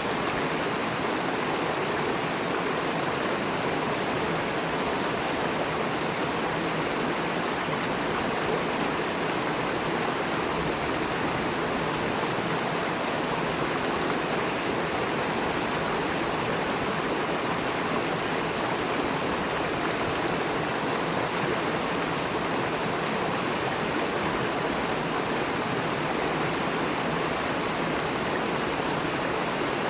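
River running swiftly between rocks: a steady, even rush of water.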